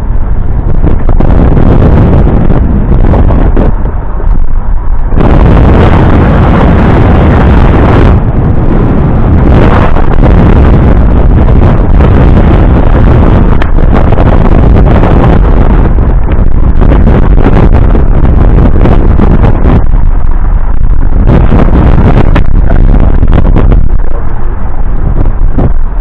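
Wind buffeting the microphone of a camera on a moving car, a loud rush over the car's road noise that swells and eases several times.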